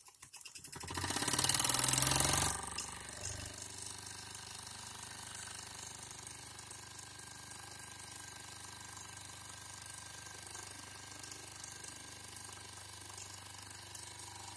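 Mamod toy steam traction engine with its single oscillating steam cylinder running fast. About a second in, a loud hiss of steam lasts a second or so as the control lever is worked, then the engine settles into a steady, even run.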